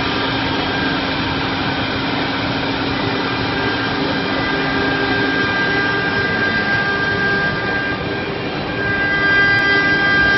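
Apextech CNC wood router running, its spindle giving a steady whine while it engraves grooves into a wooden board, over a constant mechanical din. It grows a little louder about nine seconds in.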